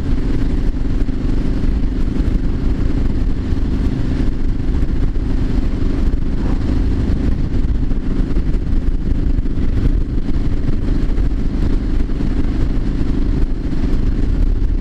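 Triumph Street Scrambler 900's parallel-twin engine running at a steady cruise, its pitch holding level. Heavy low wind rumble on the microphone sits under the engine.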